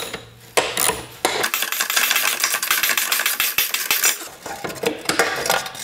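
3/8-inch-drive socket ratchet clicking rapidly, stroke after stroke, as it turns a 17 mm bolt off a motorcycle muffler bracket.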